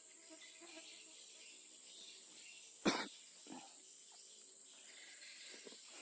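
Steady high-pitched chirring of crickets or similar insects, with one sharp sudden sound about halfway through, the loudest thing here, and a softer one just after it.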